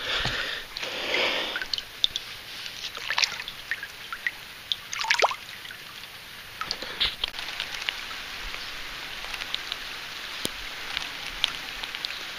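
Steady rain hiss with scattered drops ticking, after a short sloshing splash of water in the first second and a half.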